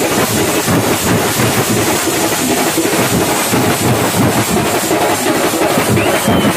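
A street drum troupe playing a fast, dense rhythm on stick-beaten drums, with hand cymbals clashing throughout, loud and without a break.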